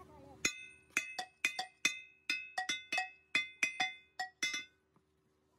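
A piece of metal struck rapidly about fifteen times in four seconds at an uneven pace, each blow leaving the same bell-like ring. The strikes stop about a second before the end.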